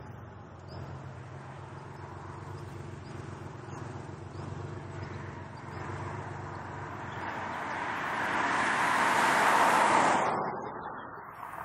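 BMW 440i Coupe with its turbocharged three-litre straight-six driving past: a steady low engine hum as it approaches, swelling into a loud rush of engine and tyre noise as it passes close by about nine to ten seconds in, then falling away quickly.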